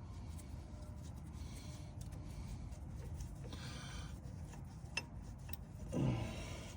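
Hand tools working the brake hose fitting loose from a truck's brake caliper: faint scraping and ticking, a sharp click about five seconds in, and a short, louder low sound about six seconds in.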